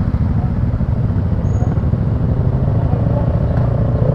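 Many motorcycle engines idling together in a pack, a loud, steady, low-pitched engine sound with a fast pulse.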